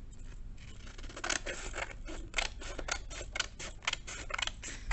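Scissors snipping through a sheet of colour paper in a quick run of cuts, about three snips a second, starting about a second in.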